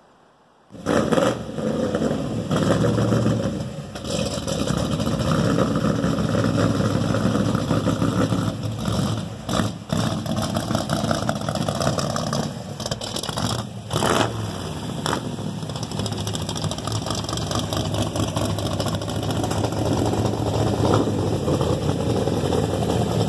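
Lifted square-body Chevrolet 4x4 pickup's engine running through a loud exhaust. It comes in suddenly about a second in, then holds a steady low drone that rises and falls a few times.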